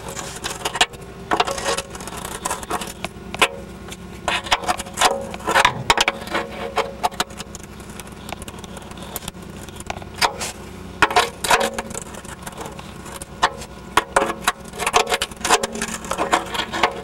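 A wrench tightening an oil drain plug under a car: irregular metallic clicks and clinks in clusters as the wrench is worked back and forth.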